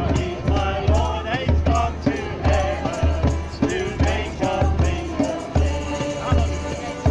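Worship music with a steady, heavy bass beat under a wavering melody line.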